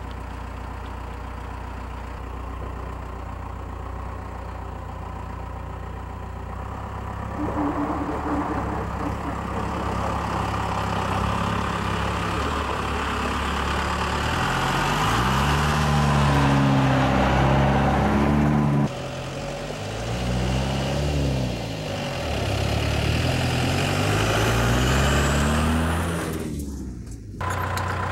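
A 4BT Cummins four-cylinder turbo-diesel in a Ford F-150 idles steadily for several seconds, then gets louder as the truck pulls away. It revs up three times, its pitch climbing and dropping each time, with a high whistle rising near the end.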